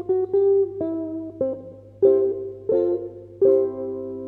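Harley Benton solid body electric ukulele played through an effects pedal chain into an amp: a short run of picked notes and chords, the last chord at about three and a half seconds left to ring and fade. A steady amp hum sits underneath.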